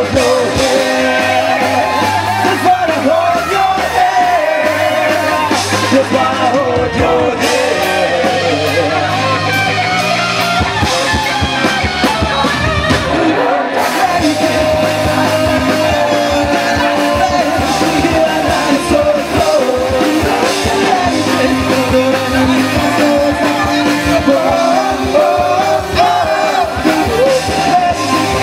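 Live rock band playing loud: drums and electric guitar under sung vocals.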